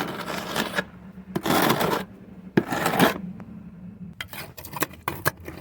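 A hand tool scraping through soil and rubble in three strokes, then a run of short sharp clicks and knocks.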